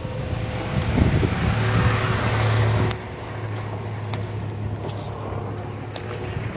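A truck driving past, its engine and road noise swelling over the first few seconds and dropping off suddenly about three seconds in, leaving a lower, steady engine hum.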